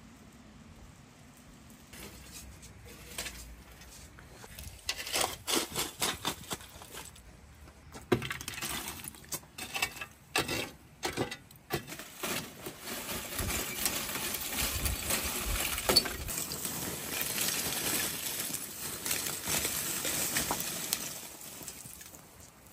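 Hard clinks and knocks, most of them between about five and twelve seconds in, followed by a steadier rustling hiss that fades near the end.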